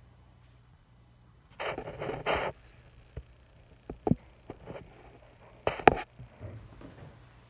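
A side door being opened: about a second of scraping and rustling, then scattered clicks and knocks, the loudest two close together near the end.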